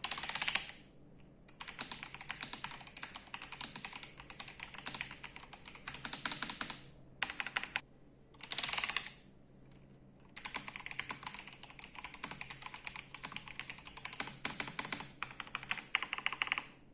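Typing on an Attack Shark K86 mechanical keyboard fitted with PBT double-shot pudding keycaps: fast runs of key clacks in three stretches with short pauses between them. Two short, louder bursts of rapid clacks come near the start and about halfway through.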